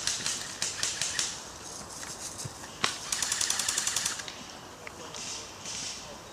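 Airsoft guns firing: a string of shots in the first second or so, a single sharp crack near the middle, then a rapid full-auto burst lasting about a second.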